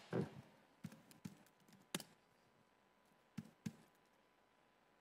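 Faint laptop keystrokes: about half a dozen separate key taps, irregularly spaced, as a short search word is typed.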